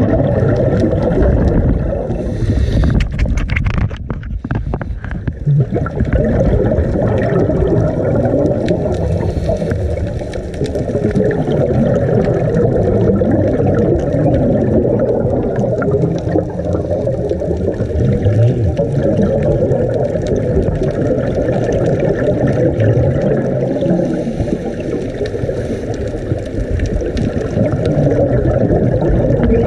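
Steady, muffled rumbling and gurgling of water heard underwater at about 50 feet, churned by storm surge and rough seas overhead. A brief burst of crackling comes about three to five seconds in.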